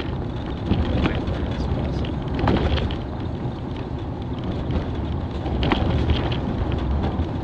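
Car driving on a dirt and gravel road, heard from inside the cabin: a steady low rumble of tyres on gravel, with several sharp knocks of stones or bumps against the car.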